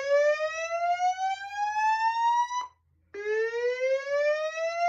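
Slow-whoop alert tone from a Notifier DVC voice evacuation system, sounding between repeats of the recorded fire message. A tone rises steadily in pitch for about three and a half seconds and cuts off. After a short gap a little past halfway, it starts low again and begins its next rise.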